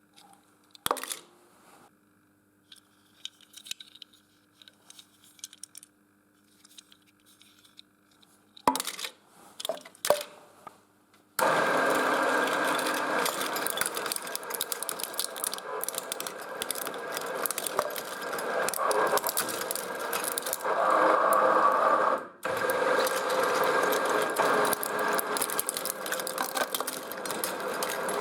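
Shredder grinding die-cast metal toy cars: a sudden, loud, dense metallic clatter and crunching that starts about eleven seconds in and keeps going, with one brief drop-out about two-thirds of the way through. Before it there are only scattered clicks and knocks over a faint steady hum.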